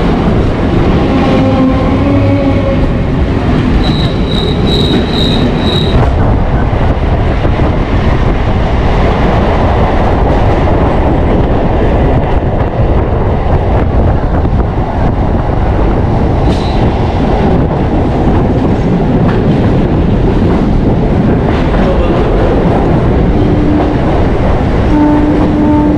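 Electric suburban local train running at speed, heard from the open doorway: a steady loud rumble of wheels on the track and rushing air, with another train passing close alongside at the start. About four seconds in come five short, evenly spaced high beeps.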